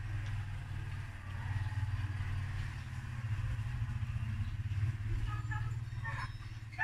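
A steady low motor rumble, with a faint even hiss above it.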